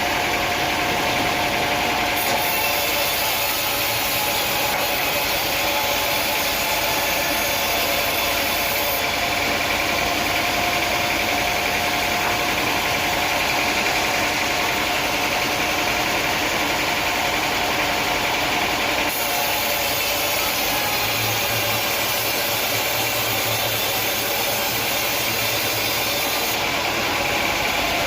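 Sawmill machinery running with a steady, engine-like drone.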